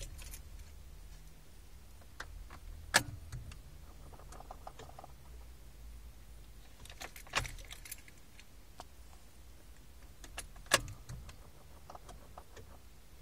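Glovebox of a Skoda Octavia II rattling inside the cabin over a steady low road rumble: light clattering with three sharp knocks, roughly every four seconds.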